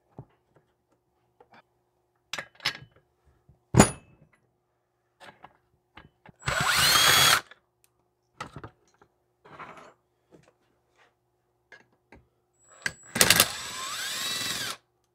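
Handheld power driver spinning in two short bursts, the second longer with a rising whine, while parts of a chainsaw are taken off; between the bursts come light clicks and knocks of parts being handled, with one sharp knock about four seconds in.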